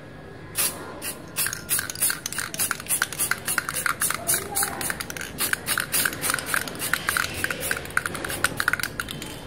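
Aerosol spray paint can being shaken and sprayed: a quick run of rattling clicks from the mixing ball, along with hisses of spray, starting about half a second in.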